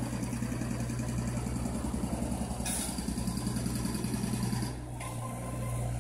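A motor vehicle engine idling with a steady low, pulsing hum. A hiss joins it from a little under three seconds in and stops about two seconds later.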